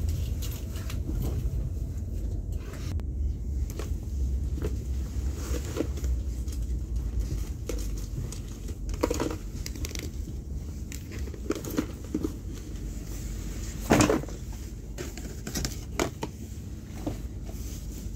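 Passenger train carriage running with a steady low rumble, overlaid by rustling and handling clicks of clothing and a phone close to the microphone; one sharper knock about 14 seconds in.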